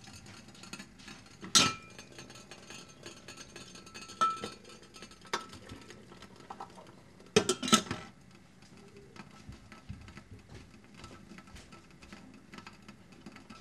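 Metal tea infuser and glass teapot knocking together as the infuser and its lid are handled in the pot: a handful of sharp, ringing clinks, the loudest a quick double clink about halfway through. Faint light ticks follow.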